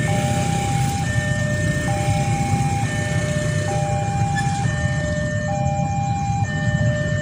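Railway level-crossing warning alarm sounding a repeating cycle of steady electronic tones, switching between a lower and a higher pitch about once a second, over a steady low rumble.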